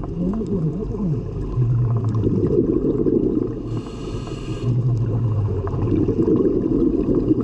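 Scuba diver breathing through a regulator, heard underwater: a hissing inhale about four seconds in, between low, rumbling exhales of bubbles.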